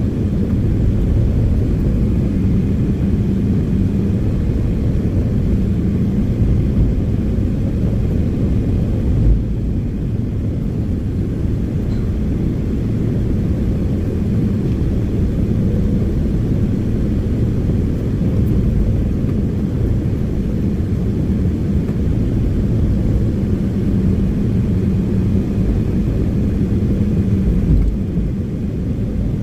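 Excavator's diesel engine running, a steady low rumble with an engine hum that eases off slightly about nine seconds in and again near the end.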